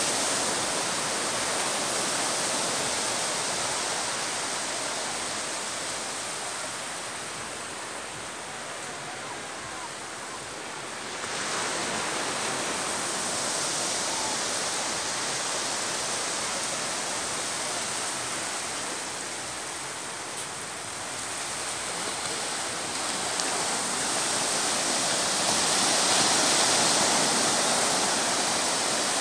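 Sea surf breaking and washing up a flat sandy beach: a steady rushing wash that swells and ebbs, jumping louder about eleven seconds in and swelling again near the end.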